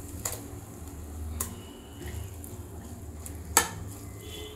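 Metal spoon scooping and scraping mutton gravy in a steel bowl and dropping it onto rice in a pot, with a few light clicks and one sharp clink of the spoon on metal about three and a half seconds in. A faint low hum runs underneath.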